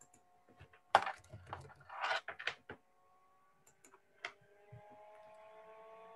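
Clicks and knocks of computer typing and mouse clicks: one loud sharp click about a second in, a quick cluster of clicks around two seconds, and another click near four seconds. A faint steady hum runs underneath.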